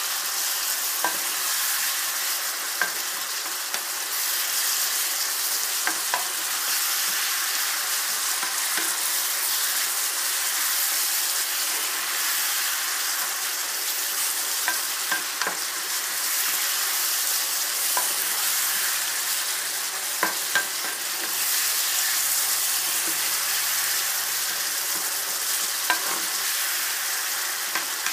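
Diced lamb sizzling steadily as it fries in oil and soy sauce, stirred with a wooden spatula that knocks against the pan now and then in sharp clicks.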